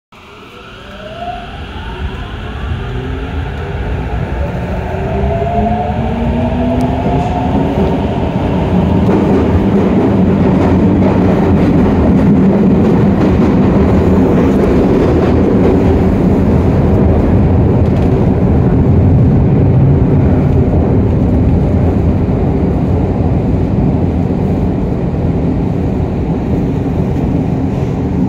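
Tokyo Metro 08 series subway train pulling away and accelerating, heard at the gangway between cars. The traction motors' whine rises in pitch through the first several seconds as the running noise builds. From about eight seconds in there is a steady, loud rumble of wheels on rail.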